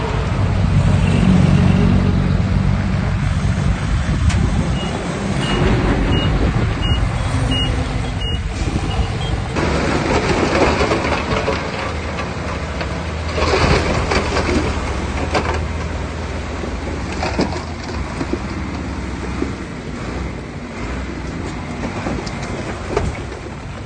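Heavy diesel earth-moving machinery running steadily, a dump truck and bulldozer at work. About five seconds in, a reversing alarm sounds a quick run of about seven high beeps. Short bursts of rushing noise follow later.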